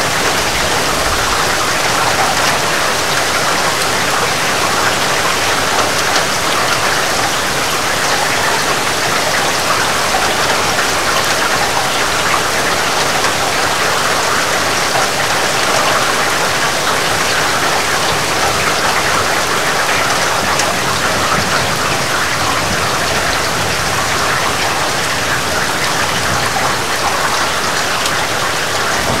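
Heavy rain falling steadily, a dense, even patter of drops with no break or change.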